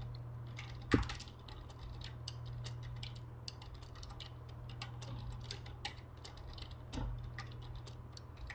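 Computer keyboard keys being tapped in an irregular run of clicks, with a louder knock about a second in and another near the end, over a steady low hum.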